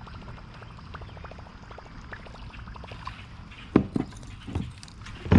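Water splashing close by as a bass strikes a topwater frog lure, a cluster of sudden splashes in the second half over a run of faint clicks.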